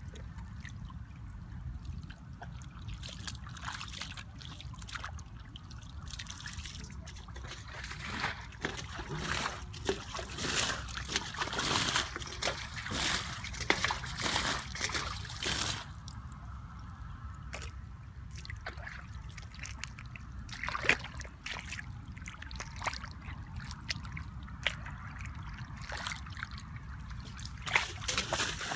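Muddy water splashing and trickling as a metal bowl scoops and flings water out of a shallow mud pit, with boots sloshing in the mud. The splashes come irregularly and are thickest in the middle of the stretch, then thin out.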